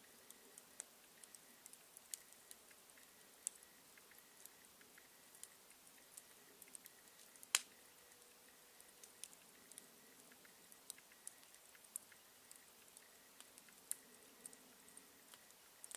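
Campfire crackling faintly: scattered small pops and snaps of burning wood at irregular times, with one sharper, louder pop about halfway through.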